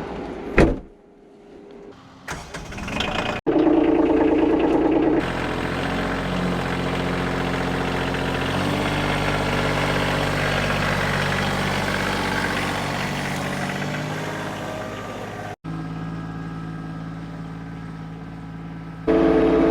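Kioti CK2620 compact tractor's diesel engine starting up and then running steadily, its pitch shifting partway through. The sound cuts off abruptly twice, and a louder burst follows near the end.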